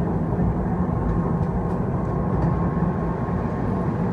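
ED4M electric multiple unit running along the track: a steady low rumble of wheels and running gear, with a faint steady tone over it and a few light clicks.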